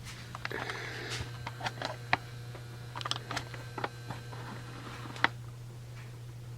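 Scattered sharp clicks and knocks with light rustling, the loudest about two seconds in and again past five seconds, over a steady low hum.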